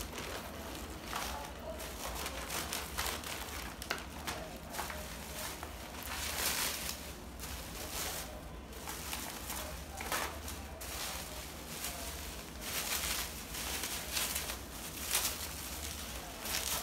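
Plastic packaging and bubble wrap rustling and crinkling in irregular bursts as a parcel is unwrapped by hand.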